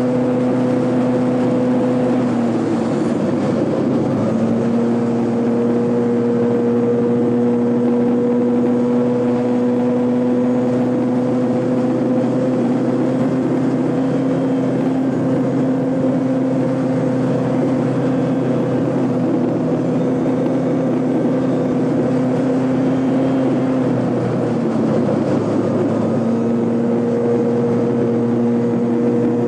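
Piaggio Zip 50 scooter engine running flat out, heard from on board the scooter. Its note is steady, dipping briefly about two seconds in and again near twenty-five seconds before climbing back.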